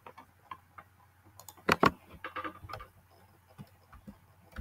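Computer mouse and keyboard clicks while selecting and pasting text: a scatter of short sharp clicks, with two louder ones close together a little before the middle.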